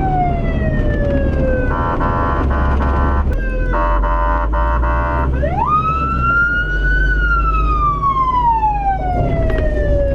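Emergency vehicle's electronic siren. A slow wail falls in pitch, switches twice to a rapid pulsing tone, then sweeps quickly up and falls away slowly, over a low vehicle rumble.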